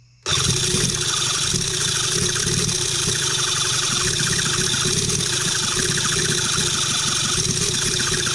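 Cison L4-175 model flathead four-cylinder engine cranking on its electric starter, trying to fire but not catching. The starter runs steadily for about eight seconds, then cuts off suddenly near the end.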